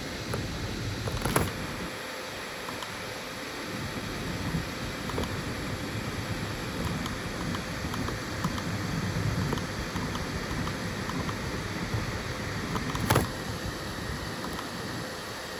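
FDM 3D printer running a print, its stepper motors and fans making a steady mechanical noise with faint whining tones. Two sharp clicks sound, one about a second in and one near the end.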